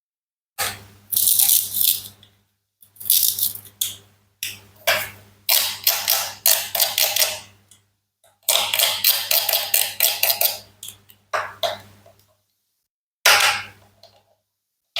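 Plastic and wooden toy fruits and vegetables being cut with a toy knife and handled: bursts of rattling clicks and scraping, six of them, separated by sudden dead-silent gaps.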